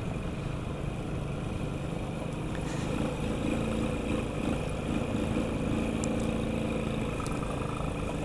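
Sanya X50 110cc motorcycle engine running steadily at low road speed, under a constant rush of road and wind noise.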